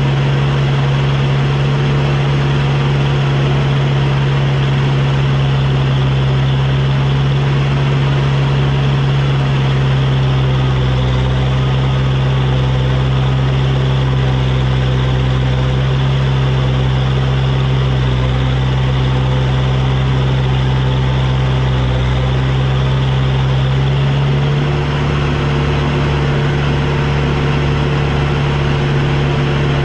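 Tractor engine running steadily at a constant speed, its note shifting slightly about three-quarters of the way through.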